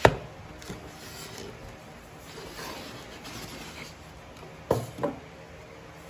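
Cardboard box and cloth-bagged helmet being handled while the helmet is lifted out of the box: a sharp knock at the start, soft rubbing and rustling of bag against cardboard, then two knocks near the end.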